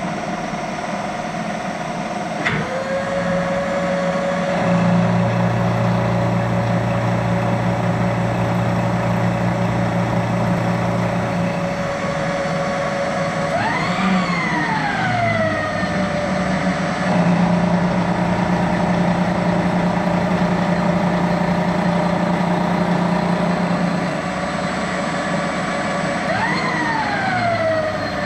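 A machine tool's motor running with a steady whine. Twice the pitch jumps up and slides back down, and a low hum comes and goes in between.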